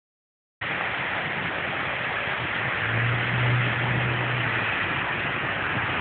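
Steady hiss of road traffic noise at a busy intersection, starting abruptly about half a second in. A low vehicle engine hum swells for about two seconds in the middle.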